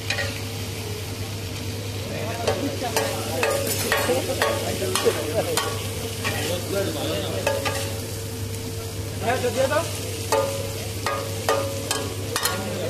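Metal spatula scraping and clacking on a flat griddle, stir-frying chicken with onions and chillies, over a steady sizzle of hot oil. The spatula strokes come as repeated sharp clacks and scrapes.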